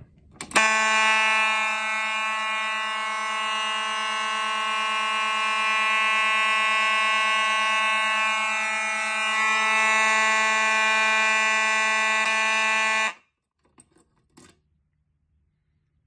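A Simplex pull station clicks as it is pulled, and the board's Simplex electromechanical fire alarm horns start at once, sounding together on continuous as one steady, loud buzzing drone. The drone cuts off suddenly about thirteen seconds in, followed by a few faint clicks.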